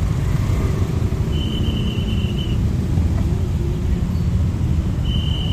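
Motorcycle traffic crawling in a jam: a steady low rumble of idling scooter engines. A thin, shrill high tone sounds twice, about a second in and again near the end.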